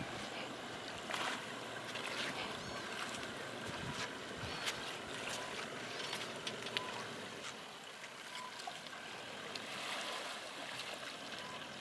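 Water splashing and sloshing as a four-wheel-drive vehicle fords a rocky creek, with scattered sharp knocks and clicks. Faint bird chirps come through a few times.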